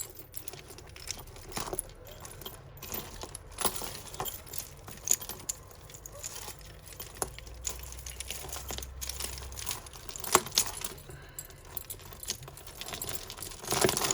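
Costume jewellery handled and untangled: small metal chains and beads jingling and clicking together in irregular little clinks, with a sharper clink about ten seconds in.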